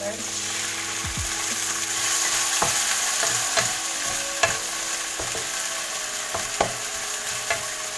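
Shredded vegetables and pork sizzling in a nonstick wok just after water is added, with a spatula stirring and knocking against the pan about half a dozen times.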